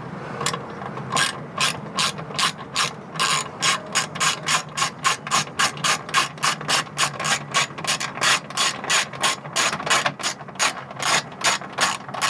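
Hand ratchet clicking in a steady rhythm, about three to four clicks a second, as it drives a screw into a plastic wheel liner.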